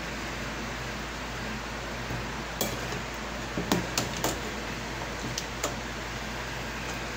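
A metal ladle clinking lightly against a stainless steel soup pot as it stirs, about six taps over three seconds starting two and a half seconds in, over a steady hiss.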